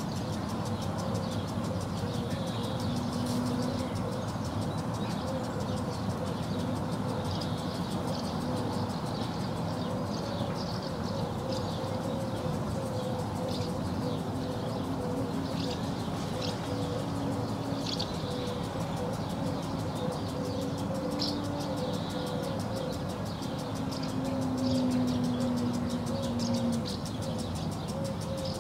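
Swallows and house martins twittering in short, scattered high chirps over a steady background rumble of distant traffic. A low drone swells near the end and then fades.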